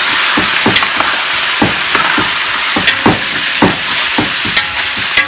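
Chicken pieces sizzling as they sear in hot oil in a large aluminium pot, with a spoon repeatedly knocking and scraping against the pot as the meat is stirred.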